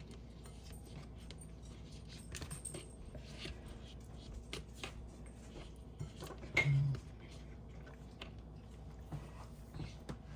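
Faint scattered clicks and light knocks of dishes and the cooked corn being handled, with one short louder low sound about two-thirds of the way through.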